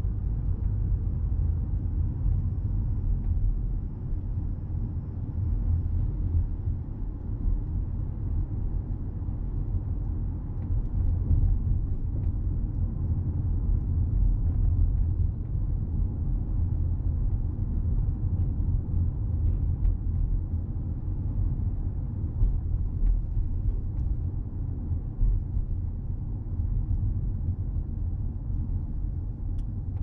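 Steady low rumble of road and tyre noise inside the cabin of a Toyota Crown Athlete hybrid (210 series) driving on a town road, with a few faint ticks.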